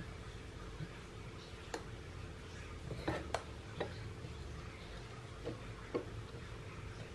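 Light scattered clicks, about six over a few seconds, as metal tweezers and a soldering-iron tip touch a handheld radio's circuit board while its transistor is desoldered, over a low steady hum.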